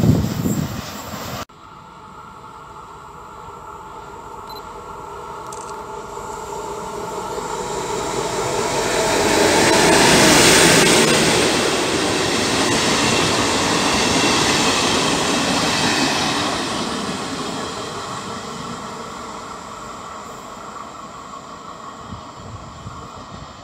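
Regional passenger train of MDVC coaches with an FS D.445 diesel-electric locomotive passing at speed, its rolling rumble rising to a peak about ten seconds in and then fading slowly as it draws away. Before it, the passing of a tank-car freight train cuts off abruptly about a second and a half in.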